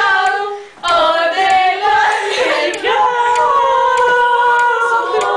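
Singing: a sung melody that settles into a long held note in the second half.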